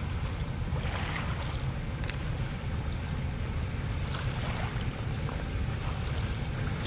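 Steady rumbling wind noise on the microphone, with a few faint clicks.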